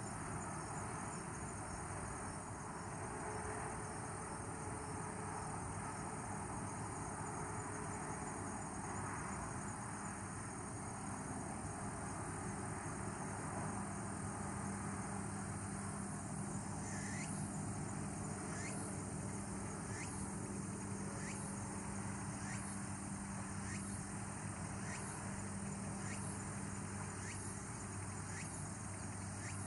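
Insects trilling steadily over a low, steady hum. From about halfway through, a repeated short rising chirp joins in, a little more than once a second.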